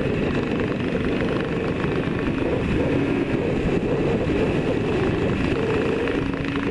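Yamaha RD400's two-stroke parallel-twin engine running steadily at cruising speed, heard from the rider's helmet chin mount with wind rush over the microphone.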